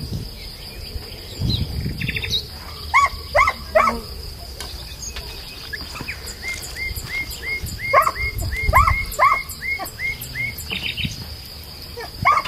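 Outdoor countryside ambience: short chirping calls come in clusters, with a quick run of them in the middle, over a steady high-pitched insect drone.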